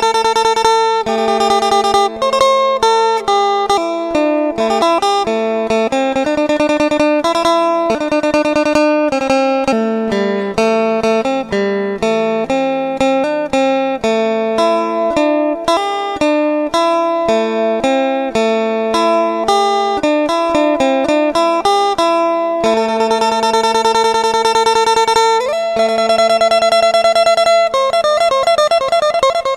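Background music of plucked guitar playing a melody over a sustained low drone note, with a sliding note near the end.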